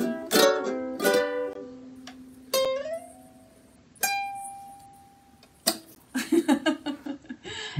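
Two ukuleles closing a song: strummed chords that ring out and fade, then single plucked notes, and one more chord near the end. Brief laughter follows the last chord.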